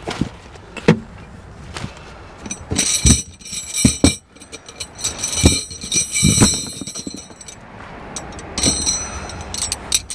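Metal tent stakes clinking and jangling together as they are handled, with scattered knocks.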